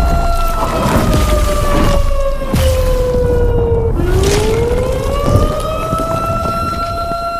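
Siren holding a steady wail that sags in pitch and then climbs back up, over loud low rumbling with several crashes.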